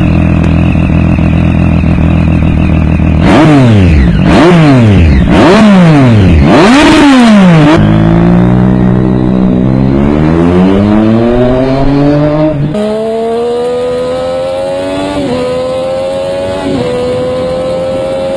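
Triumph Street Triple inline-three motorcycle engine: it runs steadily, is blipped hard in several quick revs, then pulls away, rising in pitch through the gears with a drop at each shift. The engine makes its own particular whistle, not just exhaust sound.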